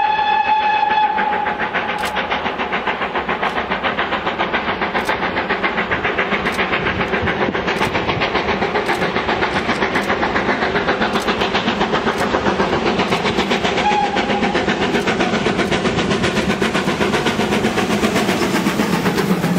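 Steam locomotive No. 2999 'Lady of Legend', a two-cylinder GWR Saint-class 4-6-0, working a train under power. Its whistle sounds a long note that stops about a second in, then its exhaust beats quickly and evenly as it draws near. A brief whistle peep comes about two-thirds of the way through.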